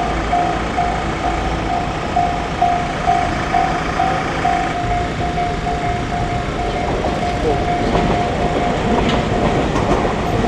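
Japanese railway level-crossing warning bell ringing, a steady electronic clang about twice a second, over the noise of a train running past.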